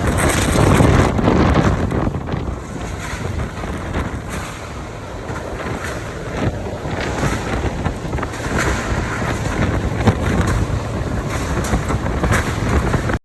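Category 4 hurricane winds gusting hard, with heavy wind noise buffeting the microphone. The gusts are strongest in the first two seconds, and a few sharp cracks come through the rush.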